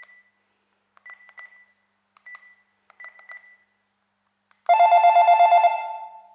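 Panasonic KX-TGH710 cordless phone handset: a few quiet button clicks, each with a short key beep, then about 4.7 s in a loud electronic ringtone starts, a rapid warble between two tones, which fades away near the end.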